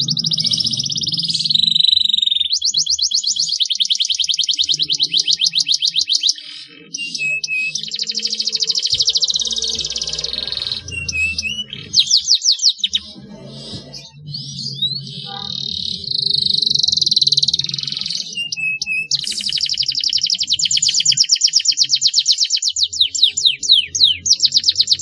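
Domestic canary singing long, fast, high-pitched rolling trills, broken every few seconds by short pauses and a few quick downward-sweeping notes.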